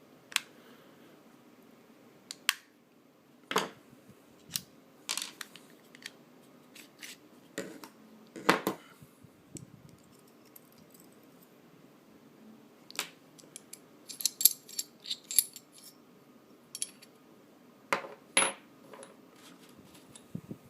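Scattered small metallic clicks and knocks of a Ruger LCP pistol being taken apart by hand, with a quick run of light ticks a little past the middle.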